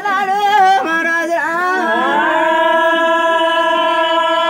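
A male folk singer chanting a verse in a quavering voice, then gliding up into one long held note that he sustains for several seconds.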